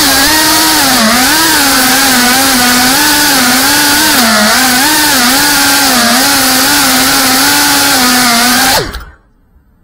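A 3.5-inch FPV quadcopter's brushless motors and propellers buzzing loudly over a hiss of propeller wash, heard from the drone's own camera. The pitch wavers up and down constantly as the motor speed changes. Near the end the pitch drops sharply and the sound cuts off suddenly.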